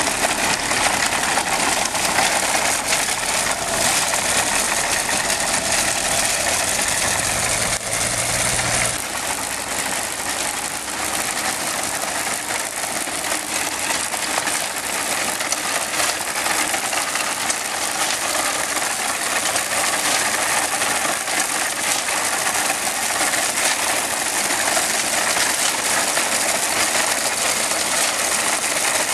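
Vintage tractor engine running as it pulls a binder cutting corn, with the rattle of the binder's mechanism over it. A low hum drops out about nine seconds in, and the running carries on.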